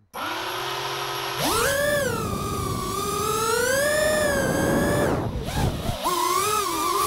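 FPV quadcopter's electric motors and propellers whining. It starts as a steady low hum while idling on the ground. About a second and a half in, the pitch jumps up sharply as it throttles up and takes off, then rises and falls with the throttle, drops briefly around five seconds in and climbs again.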